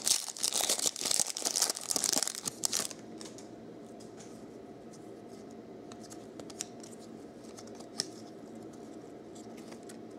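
A foil trading-card pack wrapper crinkling and tearing as it is ripped open, for about three seconds. Then the sound drops to faint handling, with a few small clicks of cards being sorted.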